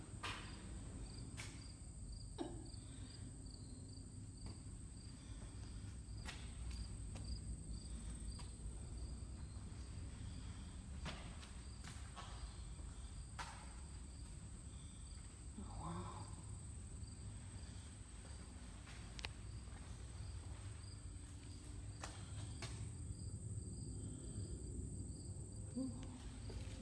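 Faint outdoor ambience: crickets chirping in a steady, even rhythm over a low rumble, with a few scattered clicks.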